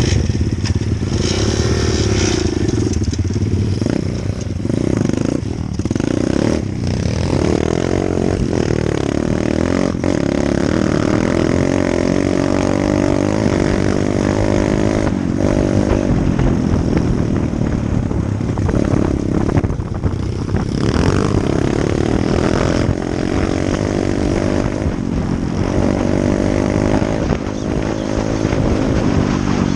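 Off-road dirt bike engine running hard, its revs climbing and falling again and again as the throttle is worked, with short drops in engine note every few seconds.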